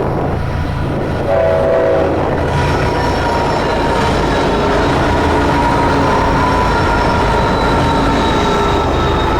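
Train horn sounding one short blast about a second in, followed by the steady rumble of a passing train, with faint thin high tones over it.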